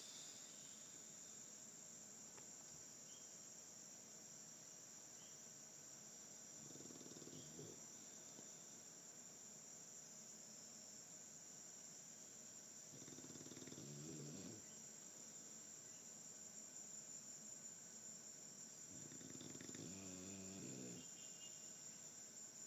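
Slow, soft snoring: three long snores about six seconds apart, over a steady high-pitched drone.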